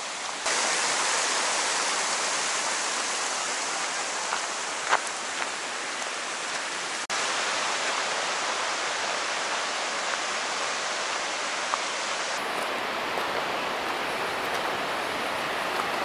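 Steady rushing of fast-flowing glacial meltwater, an even hiss that starts about half a second in and drops out for an instant about seven seconds in.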